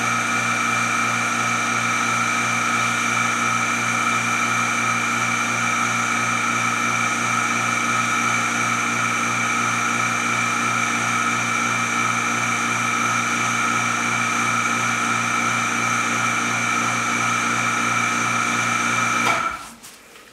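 Brasilia Portofino two-group espresso machine's pump running steadily during a shot, a constant hum with a high whine. It cuts off sharply near the end as the shot is stopped.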